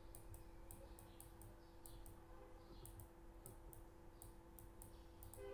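Faint, irregular clicks, about two or three a second, from a pen-input device as handwriting is put on the screen, over a faint steady electrical hum.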